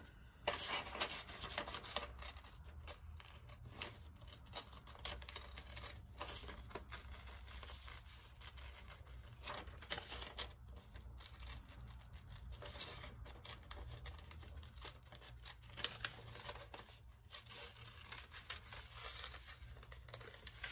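Scissors snipping through a magazine page, many short irregular cuts with paper rustling and crinkling between them.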